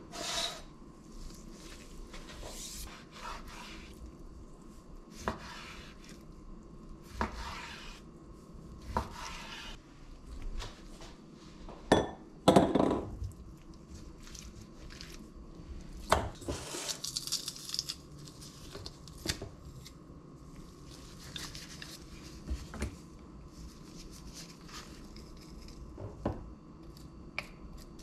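A knife cutting raw chicken breast into strips on a bamboo cutting board, with irregular knocks of the blade on the wood and clatter of a stainless steel bowl. The loudest knocks come about halfway through.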